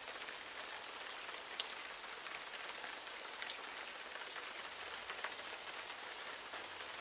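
Steady hiss of falling rain with scattered light drop ticks.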